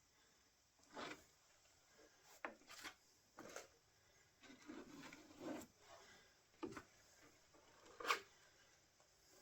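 Hand sanding of body filler around a car's rear light and petrol cap: about eight short rubbing strokes at uneven intervals, the last one the loudest.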